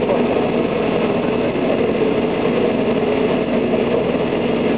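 Mercedes Econic garbage truck's engine running steadily at idle.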